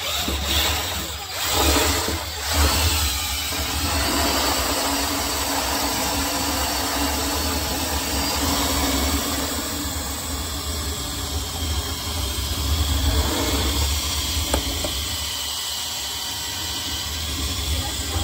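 Cordless drill running steadily, driving a paddle mixer that churns milk replacer powder into water in a steel mixing tank.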